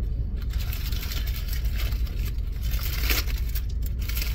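Car engine idling, heard as a steady low rumble inside the cabin, with the crinkle of a paper sandwich wrapper about three seconds in.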